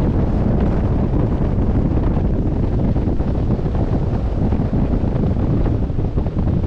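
Steady wind buffeting the microphone, with the rush of sea water and waves beneath it.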